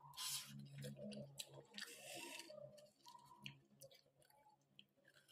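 A person chewing a mouthful of stir-fried chicken offal, with short wet mouth noises near the start and about two seconds in and scattered light clicks, over a faint steady low hum.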